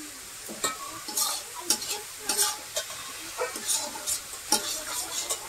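Spice masala of onion, garlic, ginger and ground cumin and coriander frying in oil in a pan with a steady sizzle, as a spatula stirs and scrapes it about twice a second. This is the masala being fried down before the chicken goes in.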